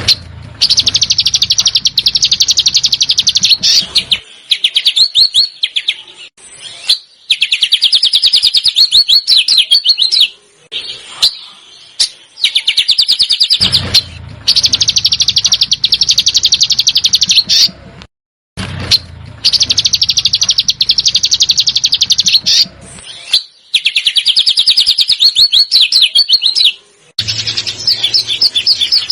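Songbird singing a 'besetan' song: fast, rattling trills of tightly repeated high notes, in bursts of about three to four seconds with short breaks between.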